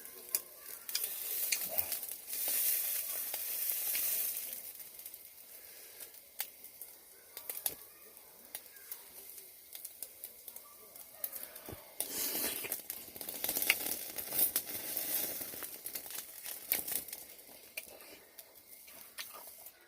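Food sizzling in a hot pan, a hiss with many small crackles. It swells twice: a few seconds in, and again for several seconds past the middle.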